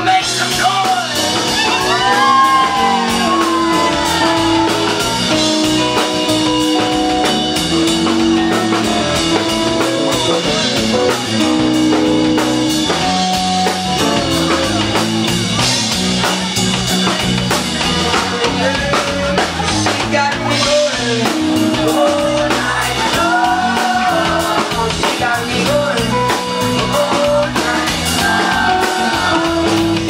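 Live band playing a song with drum kit and guitar, a singer's voice coming in near the start and again in the last third.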